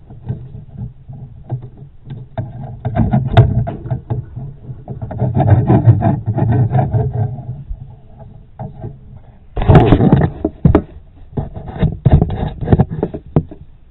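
Fiberglass glow rod scraping and knocking against wood framing as it is pushed through a drilled hole into a wall cavity. The sound comes in two spells of rubbing, and the louder one starts about ten seconds in.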